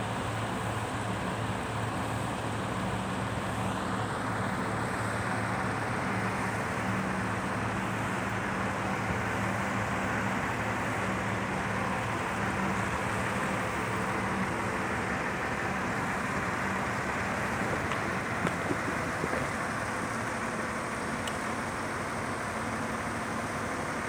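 Mobile crane's diesel engine running with a steady low hum, under a wide rushing noise that grows about four seconds in.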